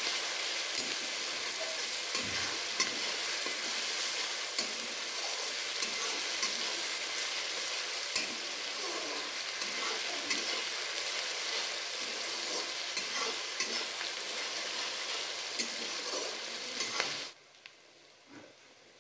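Grated onion and green chillies sizzling in hot oil in a metal kadai while they fry to light brown, stirred with a flat metal spatula that clicks and scrapes against the pan. The sizzle cuts off suddenly near the end.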